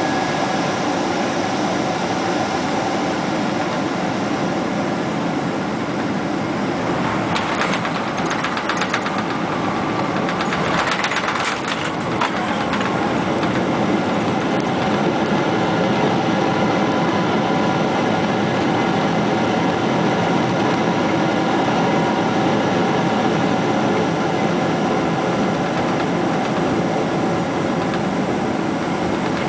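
Boeing 777 landing as heard from the passenger cabin: steady engine and airflow noise, with a fast rattling rumble from the landing gear on the runway for about five seconds a quarter of the way in. After that the noise grows a little louder and stays steady as the jet rolls out.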